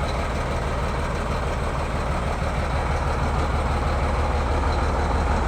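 A heavy-equipment engine running steadily with a deep, even throb, slowly getting a little louder toward the end.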